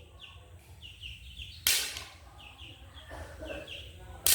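A chick peeping in short, falling chirps, several a second. Two loud, sharp cracks cut in, one about a second and a half in and one at the end, and they are the loudest sounds.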